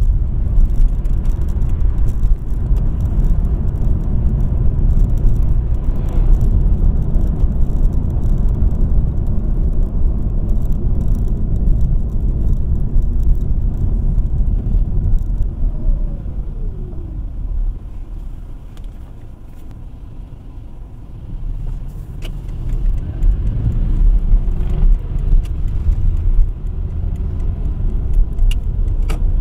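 Car driving in city traffic, heard from inside the cabin: steady low tyre and engine rumble. It falls away for a few seconds past the middle as the car slows in the traffic queue, then builds again as it moves off.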